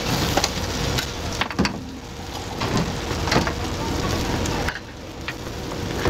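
Food sizzling on a hot street-stall cooking surface: a steady hiss with scattered clicks and taps of cooking utensils, over a low rumble.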